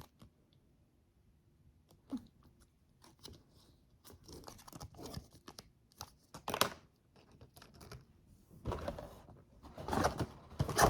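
Packaging being handled by hand: scattered clicks and rustles, then louder tearing and crinkling near the end.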